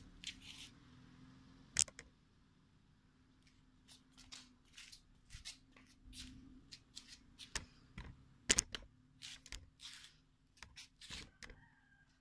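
Handling noise from a phone being moved about in the hand: irregular scratchy rustles and clicks, with two sharper knocks about 2 s and 8.5 s in.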